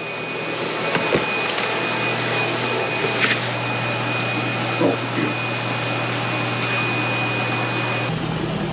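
Steady machine hum and hiss from a running motor or pump, with a thin high whine over it and a few light knocks. It cuts off suddenly near the end.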